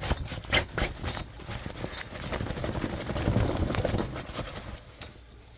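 Vintage Kirby cloth shake-out bag being scraped out to loosen its dirt: irregular knocks and scuffs, then a stretch of rough rustling that fades near the end.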